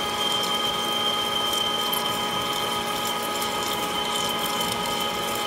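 Lathe drilling through 3-inch-thick 6061 aluminum with a 1-3/4-inch coolant-through Kyocera indexable insert drill at about 450 RPM: a steady cutting whine of several held tones over an even hiss, with faint ticks.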